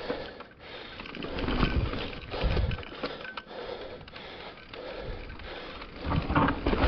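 Trail noise from a Specialized Turbo Levo electric mountain bike being ridden over rough ground: tyres rumbling over dirt and rock and the bike rattling, in uneven surges.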